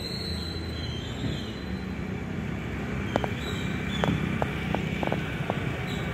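Outdoor traffic ambience: a steady low rumble of vehicle engines, with a handful of short sharp clicks a little past halfway.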